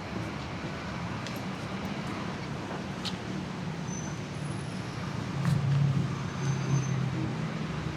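Steady city road traffic, a constant hum of engines and tyres, with a louder low rumble swelling about five and a half seconds in as a heavier vehicle goes by.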